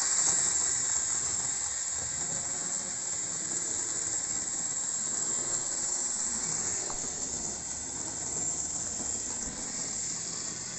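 Piko BR64 model steam tank locomotive and its carriages running fast on a model railway: a steady running noise of motor and wheels on the track, with a high hiss, loud enough that the owner calls it noisy.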